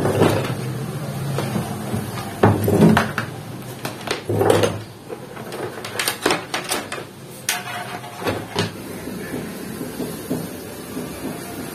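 Scattered clicks and knocks as wire connectors are pulled off a CRT TV's main circuit board and the board is handled and set down, with the loudest knocks about two and a half and four and a half seconds in.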